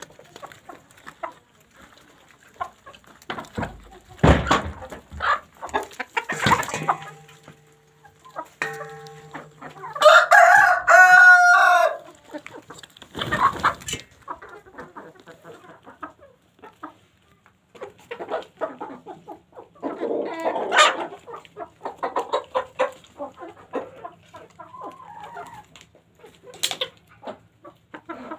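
Domestic chickens, hens and roosters, clucking as a flock, with one rooster crowing once about ten seconds in, the loudest sound. A few sharp knocks come in the first several seconds.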